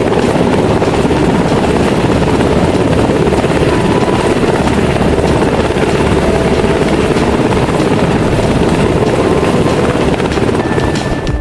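Helicopter rotor and engine sound, a steady loud whirring chop that cuts off at the end.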